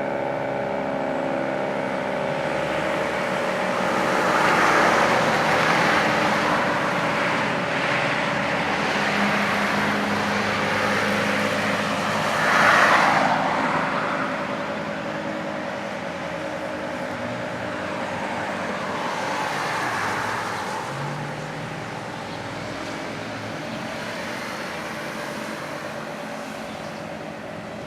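Federal Signal 2T22A two-tone siren winding down, its chord of tones slowly falling in pitch and fading. Cars pass by several times, the loudest about halfway through.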